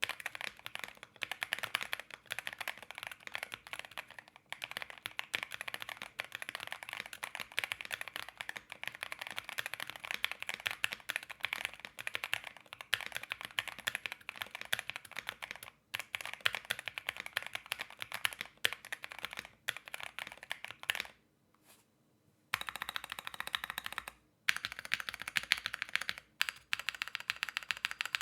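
Typing on an Akko Alice Pro Plus mechanical keyboard with Akko CS Crystal switches, doubleshot PBT ASA-profile keycaps, a tape mod and a silicone pad in the case: a fast, steady stream of key clacks. The typing stops for about a second and a half a little past two-thirds of the way through, then resumes.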